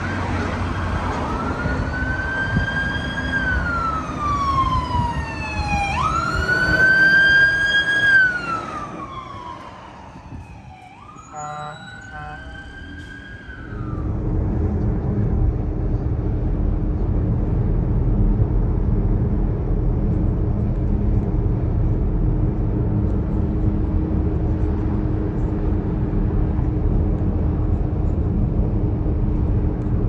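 UK emergency-vehicle siren wailing in slow rising and falling sweeps, growing louder to about eight seconds in and then fading, with a short choppy blast near eleven seconds. At about fourteen seconds it cuts to steady road and engine noise inside a car cruising on a motorway, with a steady low hum.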